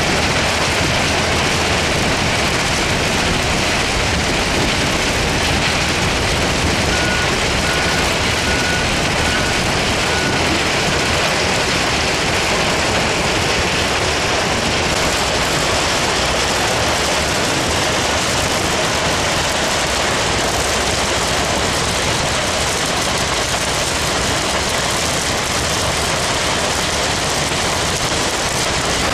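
Steady, loud rushing noise of iron ore pouring off a stacker conveyor onto a stockpile, with heavy mining machinery running. About seven seconds in, a reversing alarm beeps about five times in quick even succession.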